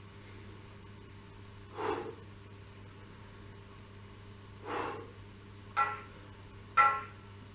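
A man breathing hard during knee push-ups, with loud exhales at spaced intervals and two quicker, sharper ones near the end, over a low steady hum.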